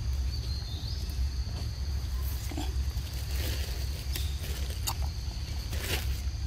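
Forest ambience: a steady high-pitched drone of insects over a low rumble, with a few light clicks and rustles near the middle and end.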